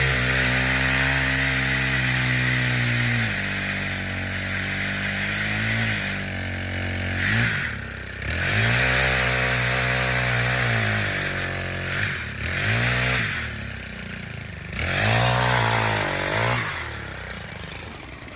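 Two-stroke chainsaw run at high revs in about five throttle bursts while cutting tree limbs. The first burst lasts a few seconds and the later ones are shorter, each dropping back toward idle before the next.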